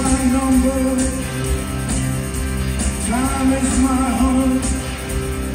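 Live rock band playing, with electric guitars, keyboards and drums under a male lead vocal that sings two phrases, one at the start and one about three seconds in.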